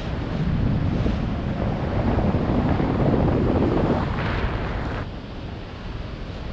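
Wind buffeting a camera microphone in paragliding flight, an uneven rushing noise that swells through the middle and drops off about five seconds in.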